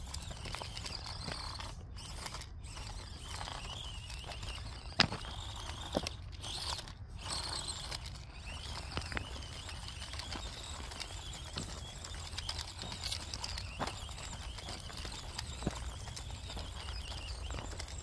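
Footsteps crunching over loose stones and gravel, with scattered sharp clacks of rock on rock, loudest about five and six seconds in.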